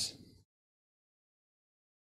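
The end of a man's spoken word trailing off in the first half second, then dead silence.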